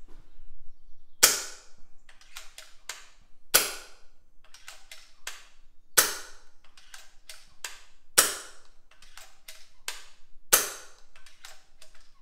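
Shrouded FX Crown .22 PCP air rifle fired five times, a shot about every two and a half seconds, each a sharp crack with a short ring. Between shots come a few quick clicks as the side lever is cycled back and forward, chambering the next pellet from the magazine.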